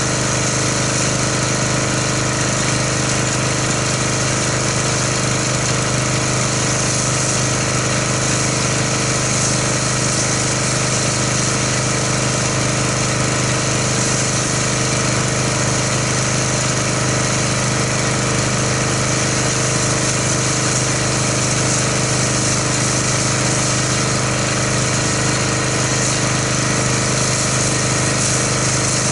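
Pressure washer running steadily with a constant motor or engine hum while the MTM foam cannon sprays, adding a steady hiss.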